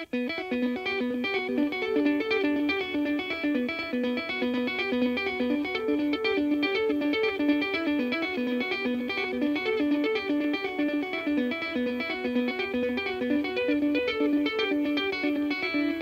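Electric guitar played through a Boss GX-100 multi-effects processor with a dotted-eighth delay switched on: a quick rhythmic pattern of picked notes and their echoes, starting abruptly and carrying on steadily.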